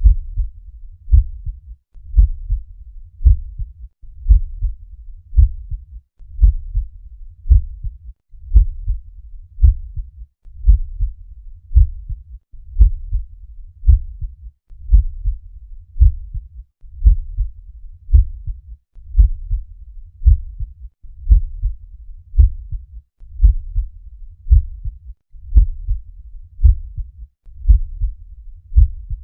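Normal heart sounds heard through a stethoscope: a regular lub-dub heartbeat, deep and thudding, at about one beat a second, with no murmur.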